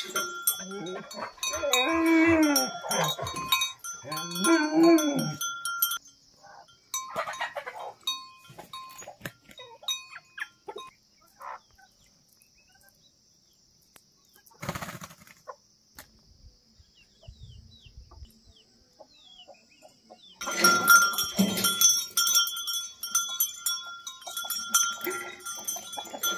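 Metal bell on a Bhote Kukur guard dog's collar clinking and ringing as the chained dog moves, with a few rising-and-falling whines in the first five seconds. The bell goes quiet through the middle, apart from a single knock, and clinks again steadily in the last six seconds.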